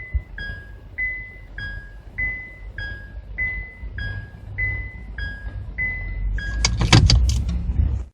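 Honda Freed's in-cabin two-tone "kin-kon" warning chime, alternating a higher and a lower note about every 0.6 s. It stops about six and a half seconds in and is followed by a louder burst of clicks and rattling.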